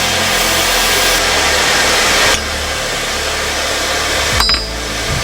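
Forge heat running with a steady rushing noise, dropping in level about two seconds in; a sharp click about four seconds in as it quietens further.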